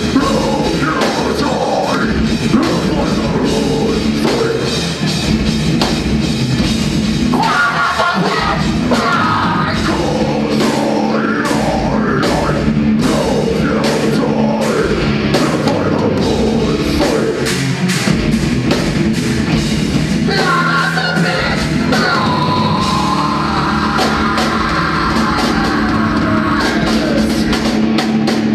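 Live heavy rock band playing loud: distorted electric guitars, bass guitar and drum kit with crashing cymbals, with held guitar notes in the last part.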